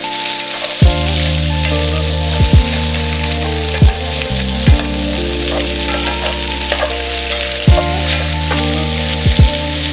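Sausages and vegetables sizzling as they are stir-fried in a pan, with several sharp, loud low thumps at irregular moments.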